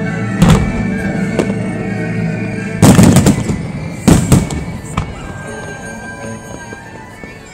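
Fireworks display: aerial shells bursting overhead in sharp bangs, loudest in a rapid cluster about three seconds in, with another pair about a second later and single bangs around them.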